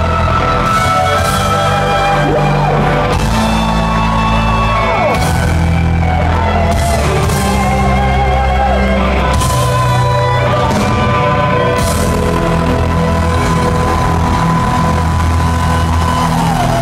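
Heavy metal band playing live: drums with cymbal crashes, heavy bass and guitars, and a lead melody holding long notes that slide between pitches. One long note is held for several seconds and drops away near the end.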